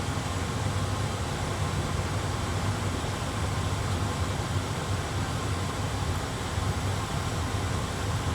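Steady cockpit background noise in an A320 flight simulator: a low, even hum under a constant rushing hiss of simulated airflow and equipment fans, unchanging throughout.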